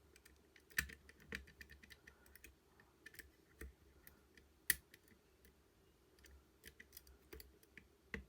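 Metal lock pick clicking and tapping against the levers inside a five-lever mortice sashlock as it is picked: faint irregular small clicks, with a sharper tap about four and a half seconds in.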